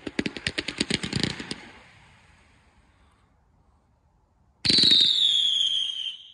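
Firework cake firing a rapid volley of shots, about ten a second, that stops about a second and a half in. About four and a half seconds in, a loud whistling shot starts, falling slightly in pitch, and fades after about a second and a half.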